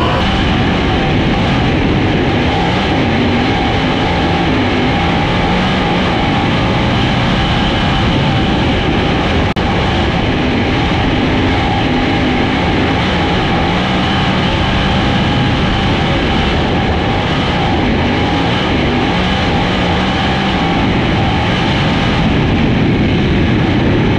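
410 sprint car's V8 engine at full race pace on a dirt oval, heard close up through an onboard camera, its pitch rising and falling as the throttle is lifted and reapplied through the turns.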